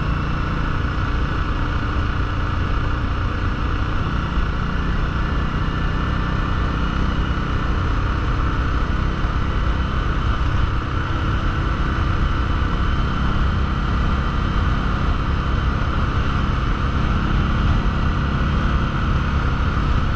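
2021 Indian Scout Bobber Twenty's V-twin engine running steadily at a slow cruise, mixed with wind and road noise.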